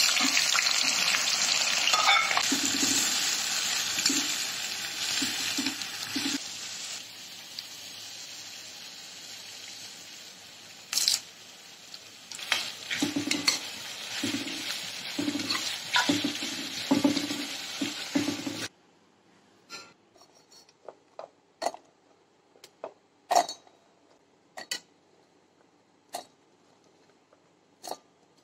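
Sliced onions dropped into hot coconut oil sizzling loudly, the hiss settling to a steadier frying sizzle as a spoon stirs and clinks against the pan. After a sudden cut, scattered light clicks of shallot and ginger pieces in a steel bowl.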